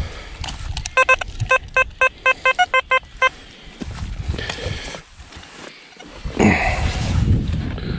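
Metal detector sounding a quick series of short beeps, about ten in two seconds with one lower beep among them, as the coil is swept over a buried target. Later, a louder rough crunching scrape of a spade cutting into the soil.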